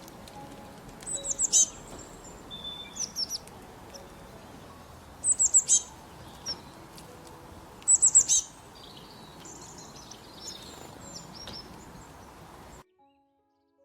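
Small birds chirping: three loud bursts of four or five quick, high, falling notes, with scattered softer chirps between them. The sound cuts off suddenly near the end.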